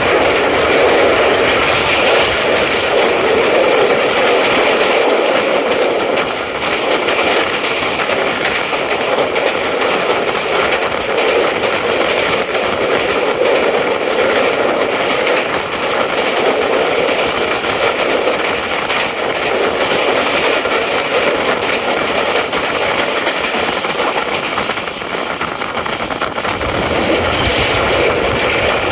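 Passenger express train running at speed, heard from on board: a loud, steady rush of wheel-on-rail and wind noise with faint steady high tones above it.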